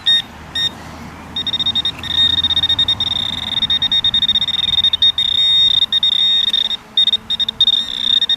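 Minelab CTX 3030 metal detector sounding a target signal: two short high beeps, then from about a second and a half in a near-continuous high-pitched tone with a fast warble, dropping out briefly a few times near the end, as the coil passes over buried metal.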